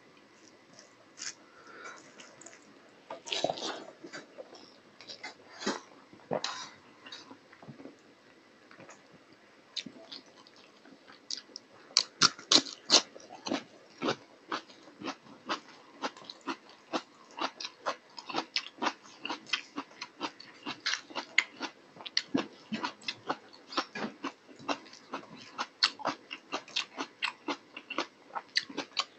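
Close-miked wet eating sounds of a person eating curry with his hand: chewing and smacking, sparse at first, then a quick run of sharp wet clicks, several a second, from about twelve seconds in.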